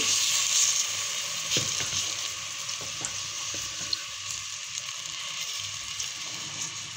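Sliced onions sizzling and crackling in hot oil in a metal pot as cooking oil is poured in. The sizzle is strongest at the start and eases off slightly.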